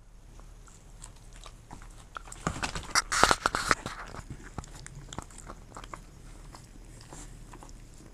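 A dog biting into and chewing a small melon-pan bun: a quick burst of crunching clicks about two and a half seconds in, then a few faint chewing clicks.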